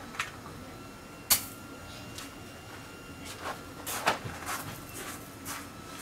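Footsteps crunching on gravel, irregular and scattered, with one sharp knock about a second in.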